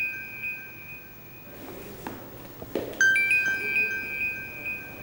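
Mobile phone ringing with a chime-like ringtone: a short run of bell tones that rings out and fades, then the same phrase again about three seconds later.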